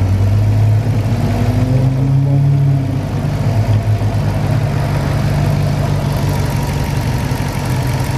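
Car engine idling steadily with a low, even hum, and a faint tone that rises and falls briefly about a second to three seconds in.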